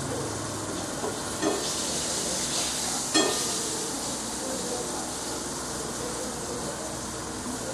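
Food sizzling in a pan on a gas burner, the frying hiss swelling for a couple of seconds as it is stirred. Two sharp clinks of a metal utensil against the pan come about a second and a half and three seconds in, the second louder.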